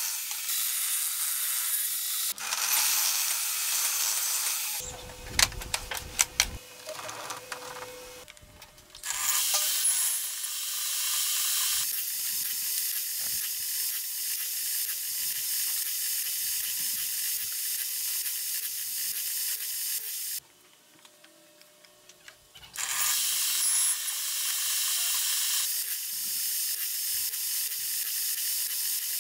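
Table saw blade cutting finger-joint slots in a wooden board, heard as a steady high-pitched hiss. The hiss breaks off and returns several times, with a few sharp clicks about six seconds in and a near-silent gap of about two seconds past the middle.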